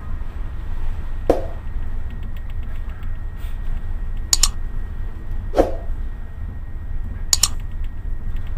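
Four sharp mouse-click sound effects from a pop-up subscribe-button animation, spread a second or three apart, over a steady low rumble.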